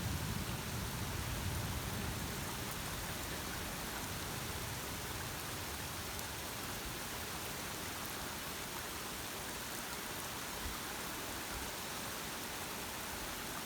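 Steady thunderstorm rain falling, with a low rumble of thunder dying away over the first couple of seconds.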